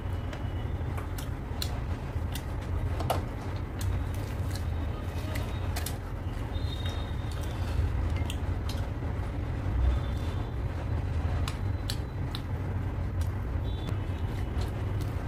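Eating sounds: scattered small clicks and smacks of chewing, and of luchi being torn and dipped into mutton curry by hand, over a steady low background rumble.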